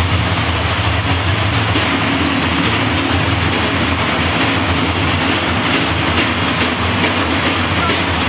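Many large frame drums played together in a fast, dense continuous roll, a loud steady rumble of overlapping beats.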